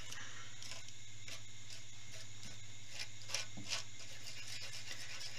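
Palette knife mixing acrylic paint on an enamel palette tray: a few faint scrapes and taps, over a steady low hum.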